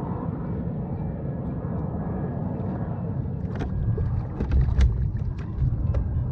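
A hooked spotted bay bass splashing and thrashing at the surface beside a kayak as it is hand-lined in: a run of sharp slaps and low thumps starting about three and a half seconds in, over a steady low rumble.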